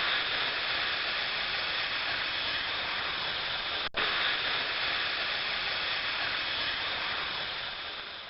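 Steady hiss, as of refrigerant escaping from a bullet-holed air conditioner unit, broken off once about four seconds in and fading near the end.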